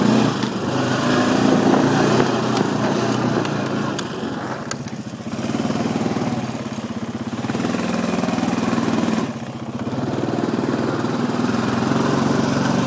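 ATV engine running while riding, its pitch and level rising and falling with the throttle. It eases off briefly about five seconds in and again about nine seconds in.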